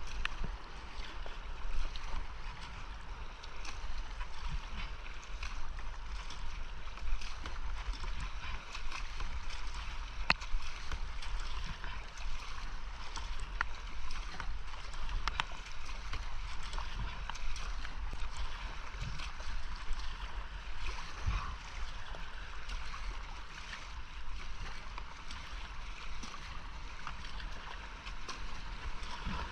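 Creek rapids rushing steadily around a whitewater kayak being paddled through them, with frequent sharp splashes and knocks from paddle strokes and the hull.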